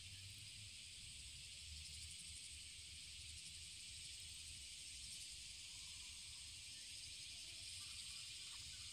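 Faint, steady high-pitched chorus of insects, with a low wind rumble on the microphone underneath.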